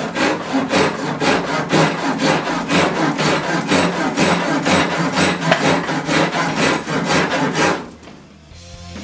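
Silky Zubat large-tooth curved Japanese pull saw cutting through a branch held in a vise: quick, even back-and-forth strokes, about three to four a second, that stop about a second before the end.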